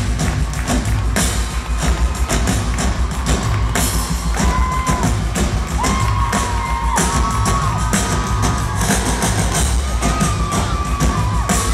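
Drum kit played live and hard: fast, dense hits on drums and cymbals, with a crowd cheering and screaming over it.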